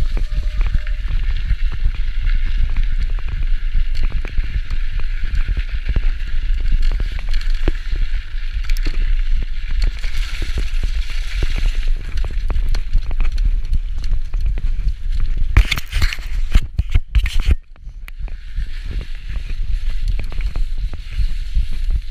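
Mountain bike riding over a snowy, slushy trail: tyres hissing through snow and slush, with the bike rattling and knocking over bumps and a steady wind rumble on the microphone. A run of louder knocks comes about sixteen seconds in.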